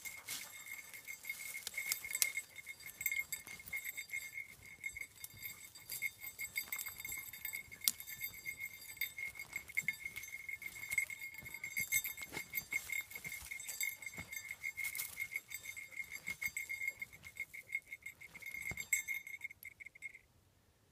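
A basset hound digging into a burrow, scratching and scrabbling through dirt, twigs and pine straw in many short crackles and clicks. Underneath runs a steady high-pitched tone that pulses slightly and drops out near the end.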